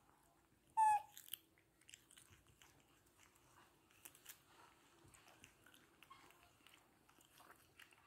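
Young macaques biting and chewing pieces of cucumber, with many small crunches and wet clicks throughout. About a second in, one short high squeak, the loudest sound.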